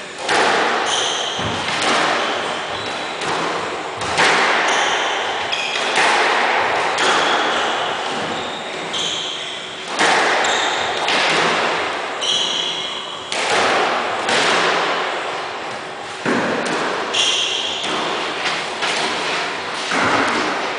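Squash rally: the ball is struck by racquets and smacks off the court walls about once a second, each hit echoing briefly. Short high squeaks, typical of court shoes on the wooden floor, come between the hits.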